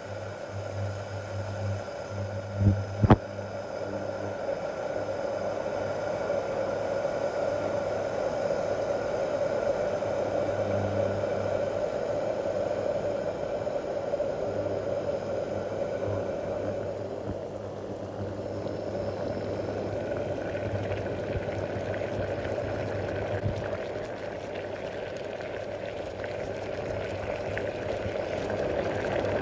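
Water boiling, a steady bubbling hiss with a low hum underneath. Two sharp knocks about three seconds in are the loudest sounds.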